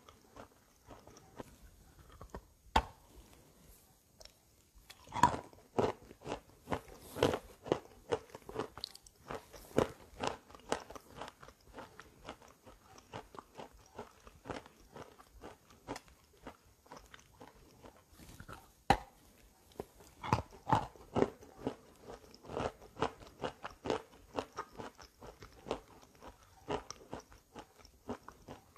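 A person biting and chewing wet chalk coated in gray clay paste: irregular crunching and chewing, with two sharp single bites about 3 s and 19 s in.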